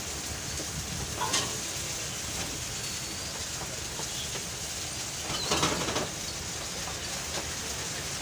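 Ingredients frying in a wok over a gas burner: a steady sizzle and burner hiss, with two brief louder bursts, about a second in and around five and a half seconds, as more food goes into the hot pan.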